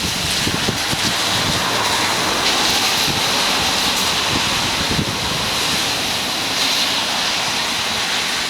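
Typhoon wind blowing hard, a steady rushing hiss with gusts buffeting the microphone in uneven low rumbles.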